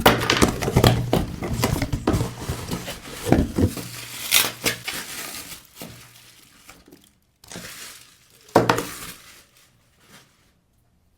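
Clicks, clatter and crinkling of a smartphone box and its packaging being handled and opened. The sounds are dense at first and thin out after about six seconds, with one more short burst of rustling near the end.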